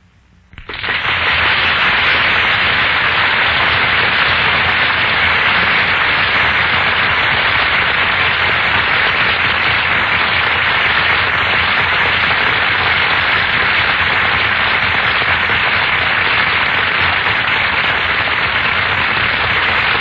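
Studio theatre audience applauding, starting suddenly about half a second in and going on steadily, heard through an old 1941 radio broadcast recording.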